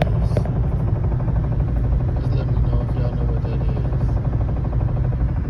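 Steady low rumble of a 2018 Chevy Cruze with irregular short clicks over it: the clicking noise from the front right side of the car that the owner cannot identify.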